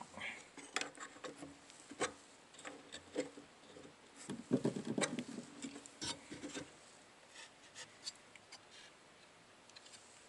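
Small metal nuts and a circuit board on a sheet-metal bracket being handled by hand: scattered light clicks and taps, with a busier spell of rubbing and clatter in the middle.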